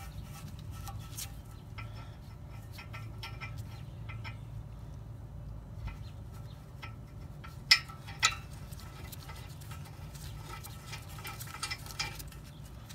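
Light metallic clicks and ticks of a 2008 Honda Accord's front brake caliper bracket bolt being handled and threaded in by hand, with two sharper clicks a little past halfway.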